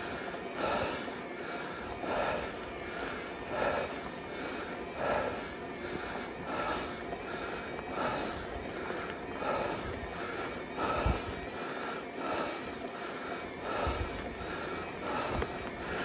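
A cyclist breathing hard and rhythmically, about one loud breath every second and a half, over a steady rush of wind and road noise.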